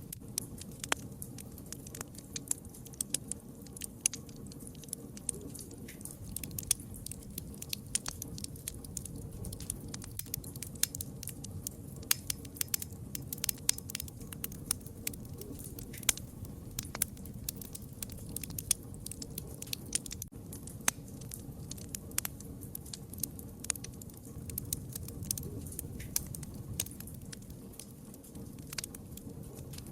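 Wood fire crackling: frequent sharp, irregular pops and snaps over a low steady rush of burning.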